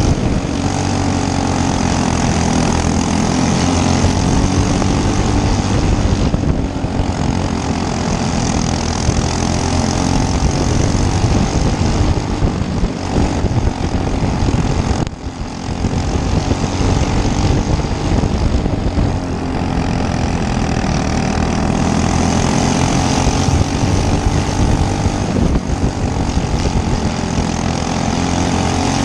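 Racing go-kart engine running hard on a dirt oval, its pitch rising and falling as it works through the turns, with a short drop in loudness about halfway through.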